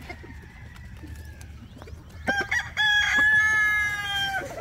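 Rooster crowing: a few short notes about two seconds in, then one long held call of under two seconds that dips slightly at its end.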